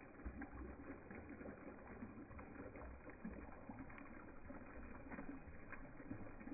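Very faint, muffled sloshing of pond water around a hand held in it, with a few soft ticks; close to silence.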